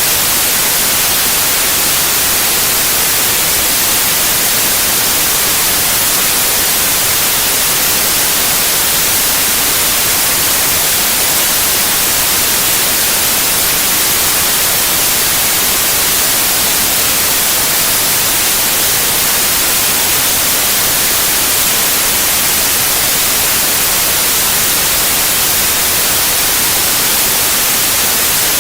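Steady white noise: an even hiss, bright in the treble, with no change or break.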